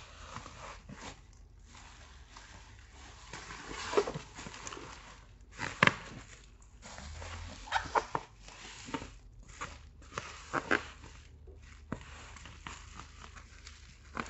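Black plastic courier bag crinkling and rustling as it is handled and turned over, with several sharper crackles of the plastic.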